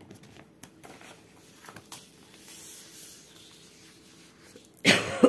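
Paper pattern sheets rustling and sliding under a hand as they are handled, with a few light clicks. Near the end, a sudden loud cough.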